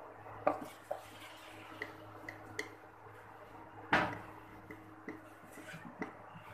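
Scattered light clinks and knocks of a spoon and dishes being handled, about ten in all, the loudest about four seconds in, over a faint steady hum.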